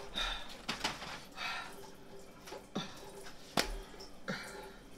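Scattered quiet clicks, smacks and short rustles of people eating close to the microphone, with one sharper click a little past the middle.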